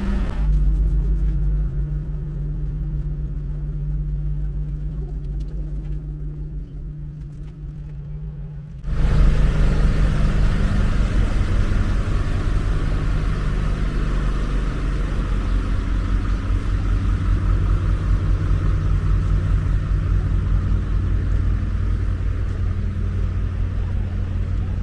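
Diesel engine of a large work lorry running steadily at idle, a low rumble. About nine seconds in, it suddenly becomes louder and fuller.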